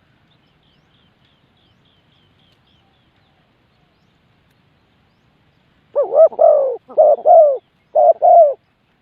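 Spotted dove cooing: three loud, low cooing phrases in quick succession near the end, each with two parts. Before them, a faint rapid series of high chirps from a small bird.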